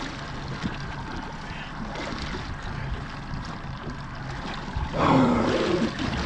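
Steady low hum and water noise of a small fishing boat on the sea, with a loud voice-like shout about five seconds in.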